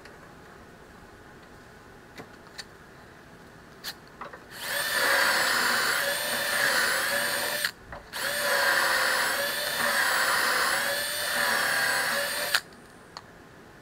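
Cordless drill boring holes through a Rockler Beadlock jig into the edge of a wooden tabletop. It runs in two runs, about five seconds in and again just after a short stop, with the motor's pitch dipping and recovering as the bit loads up in the wood. A few light clicks come before the drilling starts.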